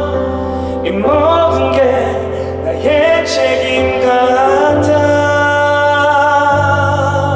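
A live pop ballad: a male voice sings a gliding phrase over steady accompaniment, then holds one long note through the second half.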